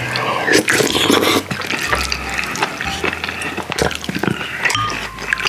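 Close-miked slurping and wet chewing of a spoonful of soft tofu stew (sundubu-jjigae), with many small mouth clicks and smacks; the slurp is loudest about half a second to a second and a half in.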